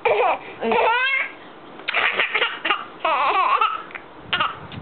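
Baby laughing in several bouts: high-pitched giggles with a sharply rising squeal about a second in, then choppy breathy laughs.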